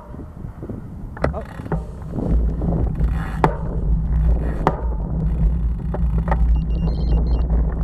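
Wind buffeting a bicycle-mounted camera's microphone, with road rumble as the bike rides along. It grows louder from about two seconds in as the bike picks up speed, and several sharp clicks and knocks come through.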